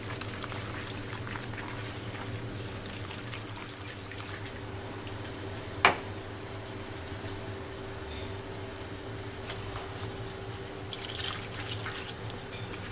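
Fingers swirling water into a well of flour, a faint wet sloshing heard over a steady low hum, with one sharp knock about six seconds in.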